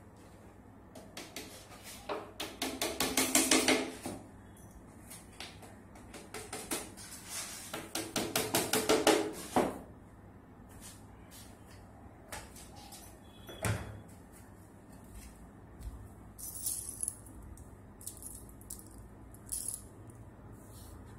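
Two runs of rapid metallic tapping and clattering, each a couple of seconds long and speeding up, from a carpenter's hand tools and metal bed fittings, followed by a few single knocks.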